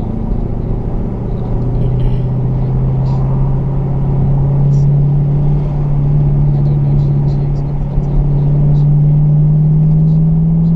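Chevrolet Camaro (5th generation) driving, heard from inside the cabin: a steady low engine drone over road noise, rising slowly in pitch as the car gains speed.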